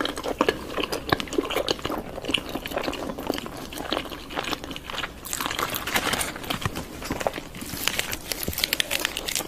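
Close-miked ASMR eating sounds of someone biting and chewing juicy chicken: a dense, irregular run of sharp mouth clicks and smacks.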